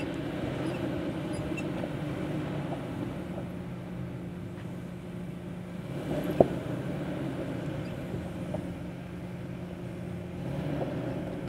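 Isuzu SUV's engine running at low revs as it crawls up a rocky off-road trail, a steady hum that swells slightly now and then. A sharp knock comes about six seconds in.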